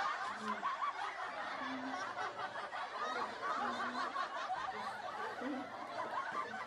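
Several people laughing and giggling together without a break.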